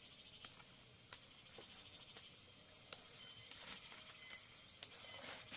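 Leafy vegetable stems being snapped by hand: four crisp snaps spread over a few seconds, with soft rustling of leaves and stalks in between.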